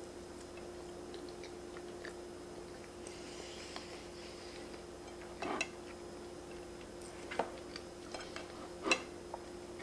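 Soft chewing of a moist chocolate cake, with a few light clicks of a plastic fork against the cake and its plate, the loudest near the end. A faint steady hum sits underneath.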